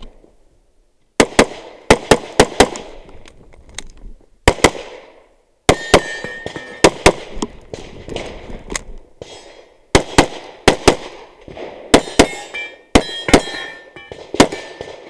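9mm SIG P320 pistol fired rapidly, mostly in quick pairs of shots a fraction of a second apart, with short pauses between groups. The first shot comes about a second in.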